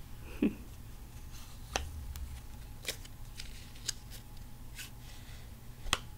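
Loose Magic: The Gathering cards being handled and flipped through by hand: about eight short, sharp clicks and snaps of card edges, spaced unevenly, the loudest one near the end.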